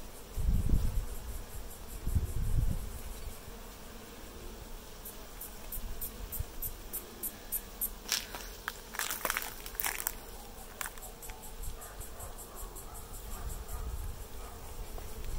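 Honeybees buzzing around an opened hive. Two loud low bumps come in the first three seconds, and a run of quick high ticks comes in the middle.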